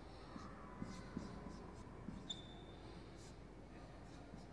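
Faint marker-pen strokes on a whiteboard, a series of short scratchy strokes and light taps, with a brief high-pitched squeak a little after two seconds in.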